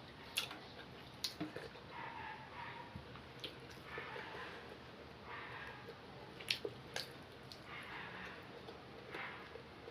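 A person eating white rice: soft wet chewing sounds every second or so, with several sharp clicks.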